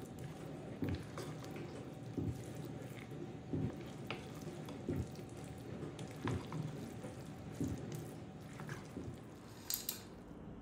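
Wooden spatula stirring orzo pasta into thick yogurt in a glass bowl: a wet squelching stroke about every second and a half, with light taps of the spatula against the glass.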